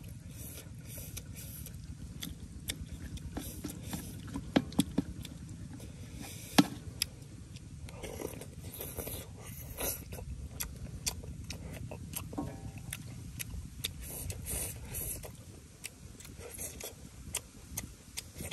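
Eating sounds: a metal spoon scraping and clicking against a large metal wok, with sips from the spoon and chewing. Several sharper taps stand out about four and a half and six and a half seconds in, over a steady low rumble.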